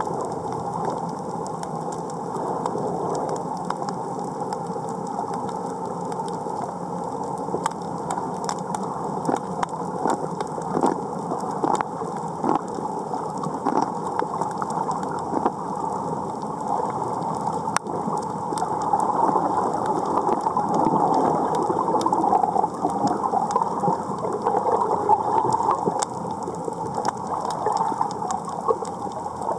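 Underwater sound on a coral reef, heard through a camera housing: a steady muffled wash with a dense, irregular crackle of sharp clicks, growing louder in the second half.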